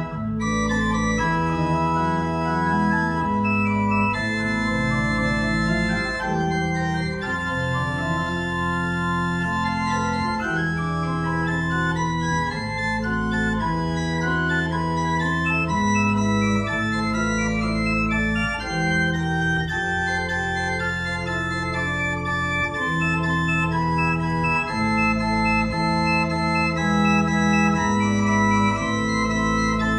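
Berghaus pipe organ (Op. 72, 1988) playing full sustained chords that change every second or two, with a deep bass line under them.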